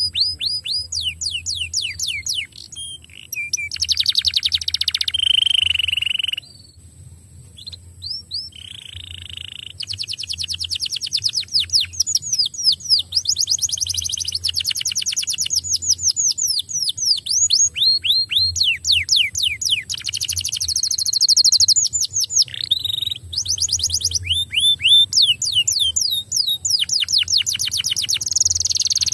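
Domestic canary singing a long, loud song: fast trills of quickly repeated down-sweeping notes, broken by buzzy rattling phrases and a few short pauses.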